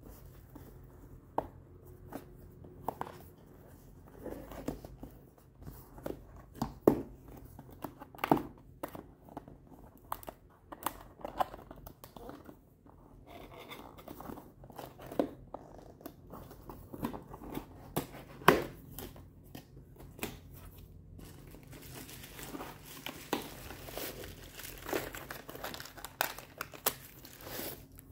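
Packaging being handled and opened: crinkling and tearing with scattered sharp clicks and knocks, busier toward the end.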